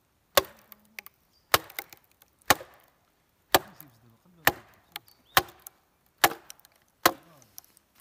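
A thick wooden club knocking a wooden wedge into the crack of a log, splitting it: eight hard wood-on-wood knocks about a second apart, a few lighter taps between them.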